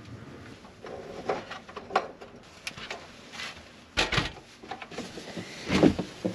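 Scattered knocks and clunks of things being handled and moved about in the cramped space of a truck-bed camper, with two louder thumps about four and six seconds in.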